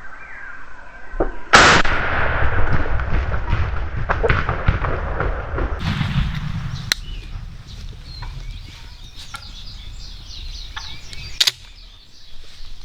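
A single shotgun blast fired at a wild turkey gobbler about a second and a half in, sharp and very loud. Several seconds of rustling noise follow, with a few sharp clicks later on.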